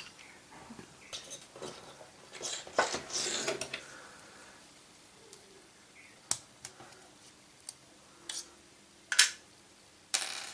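Light clicks and short scrapes of a small tool and the iPhone 4's SIM tray as the tray is ejected and slid out of the side of the phone. A few sharp clicks stand out, with a cluster of scraping about a third of the way in.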